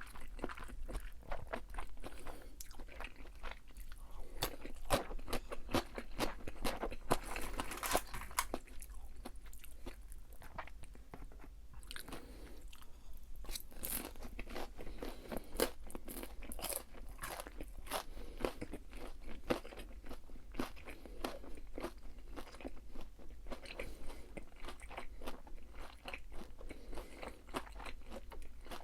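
A person chewing and crunching crispy fried food, with many sharp crackling bites one after another.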